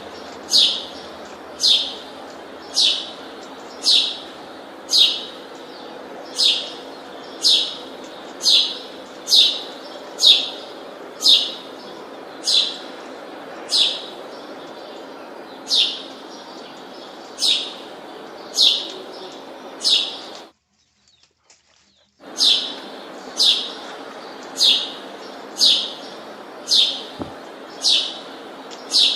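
A bird giving short, high chirps over and over, about one a second, each call sweeping downward in pitch. The calls break off for about two seconds of silence about two-thirds of the way through, then resume.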